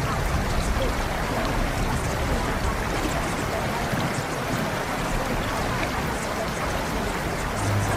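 Cave water ambience: steady flowing water with scattered faint drips.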